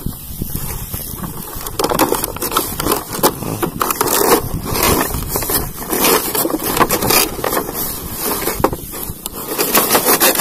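Cardboard toy box being opened by hand: the end flap pulled open and the inner tray slid out, with irregular scraping and crackling of the packaging.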